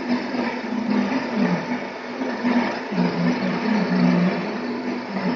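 Metal lathe running, its chuck spinning an aluminium workpiece. A low hum steps back and forth between two pitches over a steady mechanical noise.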